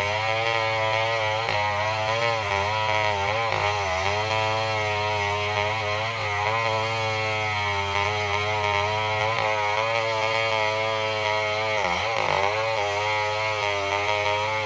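Stihl 070 two-stroke chainsaw running at high revs under load while ripping a durian trunk lengthwise. Its pitch sags briefly about four seconds in and again around twelve seconds, then recovers.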